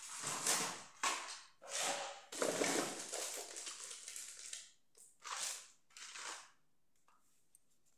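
Several short bursts of rustling, crinkling noise, one after another, dying away about seven seconds in.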